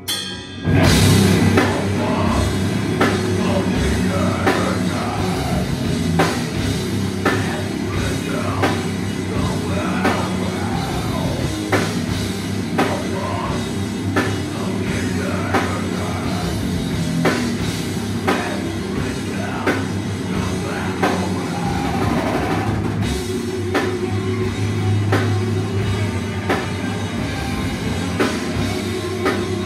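A heavy metal band playing live at full volume: distorted guitars and drum kit, with vocals over them. A held droning note gives way about a second in to the whole band crashing in, with a steady beat of drum hits.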